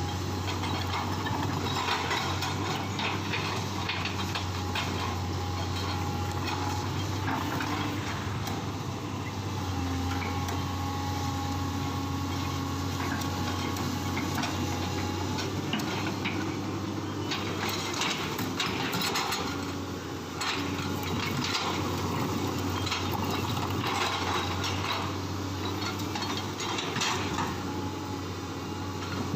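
Excavator's diesel engine running steadily under work, with repeated metallic clanks and knocks from the machine and a faint whine that changes pitch now and then.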